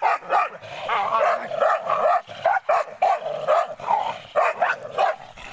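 Dogs barking in a rapid, loud string, about two or three barks a second, as they square off aggressively at close quarters.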